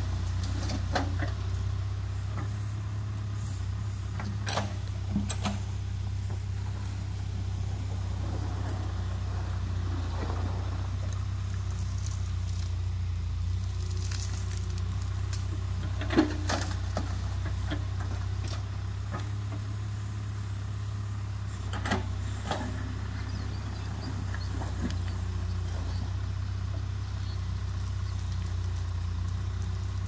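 Diesel engine of a Case 770 backhoe loader running steadily at low revs, with a few sharp knocks and scrapes from the bucket working a gravel pile, the loudest about halfway through.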